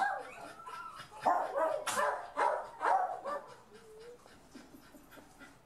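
Small dogs barking from their kennels: several barks between about one and three and a half seconds in, then quieter yips and whines near the end.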